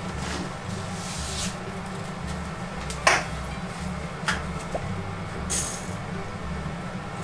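Dry spaghetti being put into a pot of boiling water: a sharp click about three seconds in, a lighter click a second later, and a brief hiss near five and a half seconds as the pasta goes in. Underneath is a low, evenly pulsing hum.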